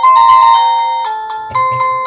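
Electronic melody ringtone from a Cacazi HYA10 wireless doorbell. A tune of bell-like notes plays, each note struck and then fading, with new notes at the start, about a second in and about a second and a half in.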